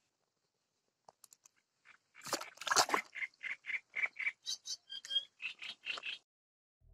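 An animal calling: a harsh burst of sound followed by a run of short repeated notes, about three a second, with a few higher whistled notes among them.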